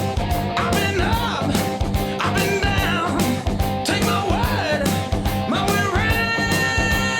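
Rock song with a steady drum beat, electric guitar and a sung melody.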